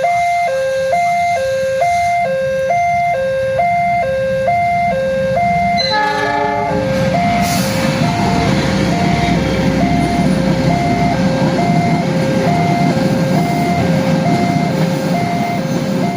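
Railway level-crossing warning alarm sounding a steady alternating two-tone signal, about two tones a second. About six seconds in, a locomotive horn sounds briefly. Then a train rumbles past over the rails while the alarm keeps going.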